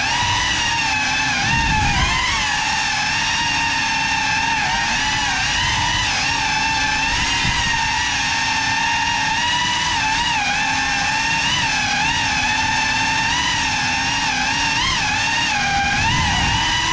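GEPRC Cinelog 35 cinewhoop FPV drone's motors and ducted propellers whining steadily, the pitch dipping and rising together with throttle changes.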